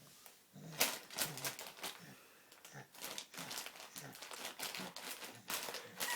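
A baby laughing in a rapid, irregular run of short, breathy bursts that sound like a dry cough.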